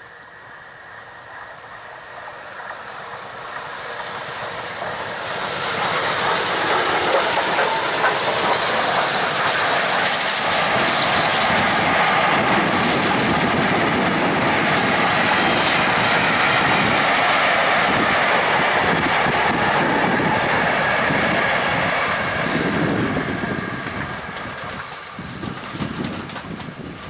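Bulleid Battle of Britain class Pacific steam locomotive 34053 Sir Keith Park approaching and running past with a train of coaches. The sound builds over the first few seconds and is loud from about six seconds in, with a strong hiss as the engine passes. The wheels then clatter over the rail joints as the coaches go by, fading near the end.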